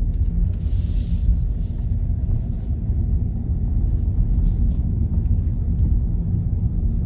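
Steady low rumble of engine and road noise inside the cabin of a Kia K3 driven slowly, with a brief hiss about a second in.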